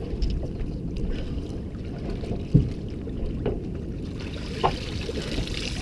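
Crab pot line hauled up hand over hand over the side of an aluminum boat, with a few sharp knocks against the hull over a steady low rumble of the boat on the water, and splashing near the end as the pot nears the surface.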